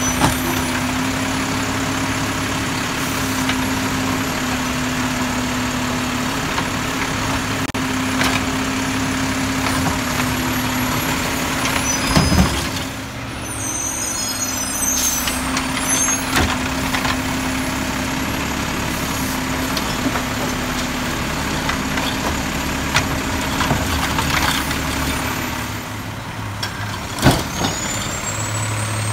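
Automated side-loader garbage truck at work: its engine and hydraulics run with a steady whine while the arm grips, lifts and dumps a recycling cart, with a few sharp clunks of the cart and arm. Air brakes hiss as the truck pulls up to the next cart.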